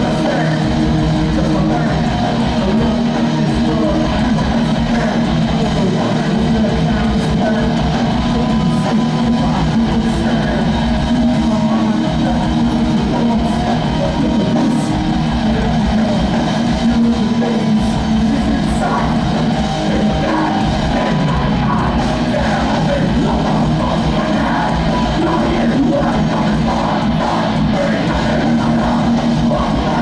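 Heavy hardcore metal band playing live: distorted electric guitars, bass and a pounding drum kit, with a shouted vocal over the top, loud and without a break.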